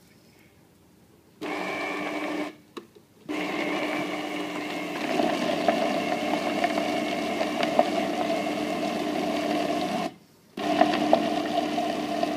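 Fantasia electric countertop blender running in three stretches, starting about a second and a half in and cutting out briefly twice, as it purées boiled chicken breast with soaked puppy kibble. It is working against a thick load: the chicken breast makes the blender spin slower.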